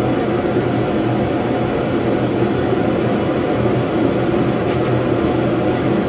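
Portable shop heater running: a steady, unchanging noise with a constant low hum.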